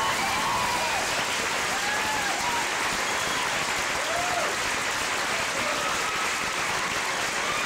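Audience applauding steadily, with a few voices whooping and calling out over the clapping.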